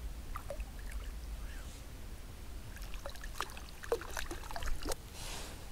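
Hooked brook trout splashing at the water's surface as it is drawn in to hand. The splashes are short and come in a cluster about three to five seconds in.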